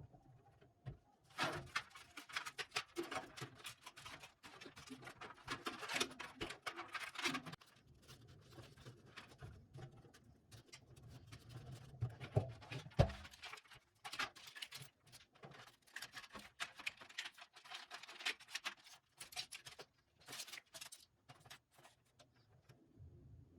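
Irregular light clicks, taps and rustles of hands handling and fitting PC parts, in busy clusters with short pauses between them.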